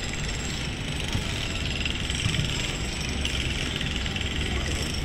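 Steady low outdoor rumble with no distinct event standing out.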